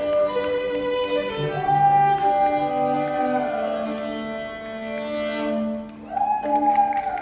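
Violin playing slow, sustained notes, two long high notes sliding up into pitch over a lower held note.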